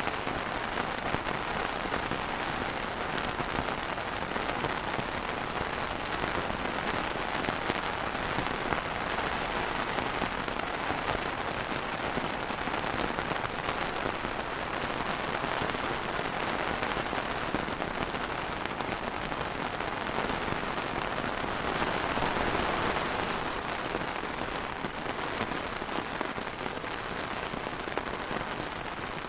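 Steady rain falling on a surface, a dense even patter, swelling slightly about three quarters of the way through and easing a little near the end.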